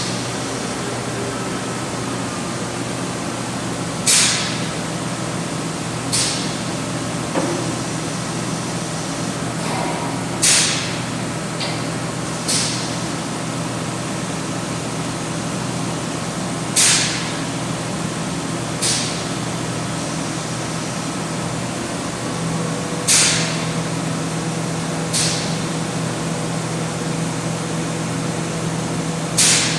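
Steady machine hum with short hisses of compressed air venting, coming in pairs about two seconds apart, with a pair roughly every six seconds.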